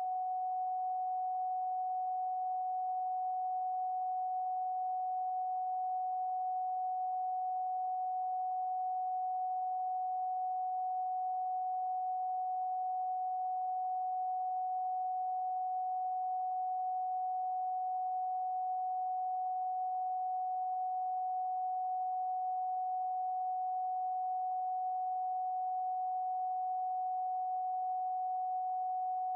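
Steady electronic pure tone, a single mid-pitched note held without change, with a fainter high-pitched tone and a soft hiss under it: a synthesized 'healing frequency' tone.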